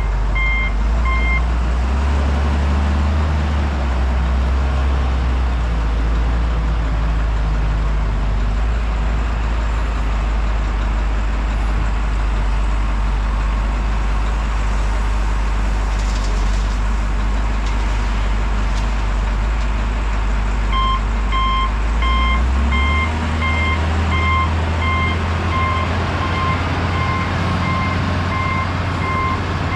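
Heavy truck engine running with a low rumble while its reversing alarm beeps at a steady pace, about two beeps a second. The beeping stops in the first second or two and starts again about two thirds of the way through, as the engine speeds up.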